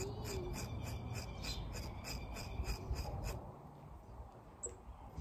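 Rubbing and rasping of horse hair as the mane is worked through by hand during a trim, over a steady background of rapid, even insect chirping.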